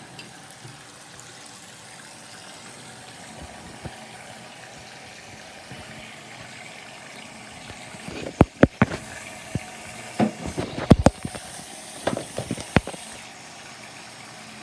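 Water running steadily from a sink faucet. A cluster of loud knocks and clatters comes about eight seconds in and lasts several seconds.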